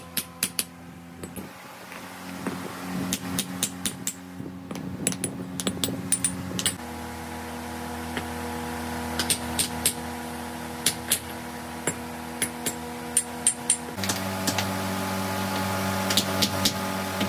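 Small hand hammers tapping freshly cast brake cylinder bodies, sharp metallic clicks at irregular intervals, knocking burnt moulding sand off the castings. Under them runs a steady machine hum that changes tone twice.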